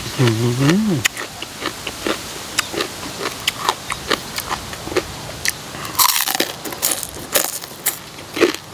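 Close-up crunching bites and chewing of spicy som tam with crisp raw vegetables: a string of irregular wet crunches, loudest about six seconds in. A short hummed "mm" comes in the first second.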